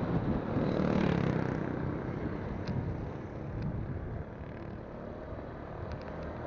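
Motorcycle riding sound: wind rushing over a phone microphone with the engine and tyres running underneath, a little quieter in the second half.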